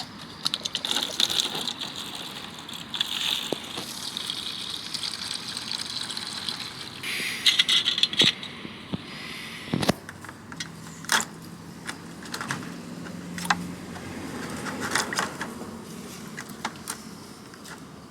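Water running and splashing into a plastic container as it is rinsed out, with knocks and rattles as the container is handled.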